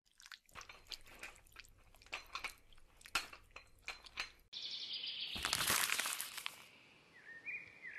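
A dense run of crisp crackling clicks over a low hum that cuts off suddenly about four and a half seconds in. It gives way to a steady hiss that swells into a loud rustling rush, with a few short high chirps near the end.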